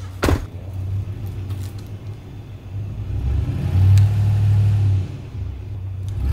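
A truck door slams shut, then a pickup truck's engine revs hard for about a second and a half, a few seconds in, and drops back to a low run as the truck lurches forward to jerk a chained-up stump that has frozen into the ground.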